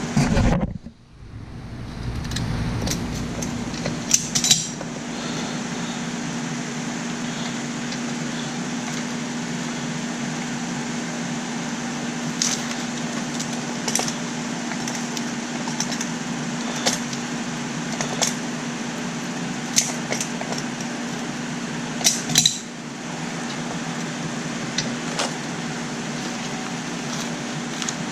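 Scattered light metallic clinks and taps of hand tools and metal A/C fittings being handled, over a steady low hum.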